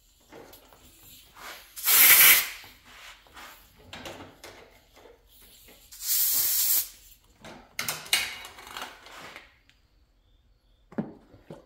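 Short bursts of hissing spray, like pressurized air or an aerosol. The two loud ones come about two seconds and six seconds in, quieter ones follow around eight seconds, and light handling clatter falls between them.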